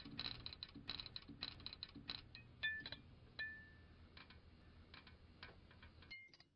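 Faint low electrical hum with irregular crackling clicks and a few brief high pings, a sound effect for an incandescent light bulb flickering on. It all cuts off about six seconds in, just after a last ping.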